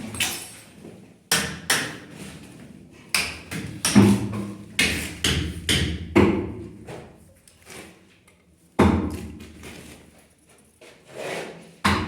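About a dozen hard knocks at uneven intervals, each ringing out briefly, bunched in the first half with a pause before the last few.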